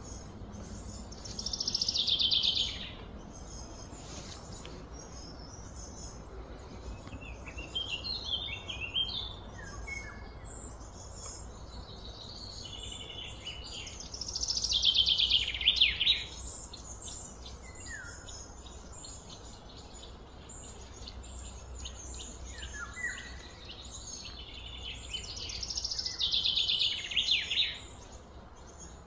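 Birds singing in the background: three loud, falling, high-pitched phrases of about two seconds each, one near the start, one in the middle and one near the end, with shorter chirps between them, over a steady low background hum.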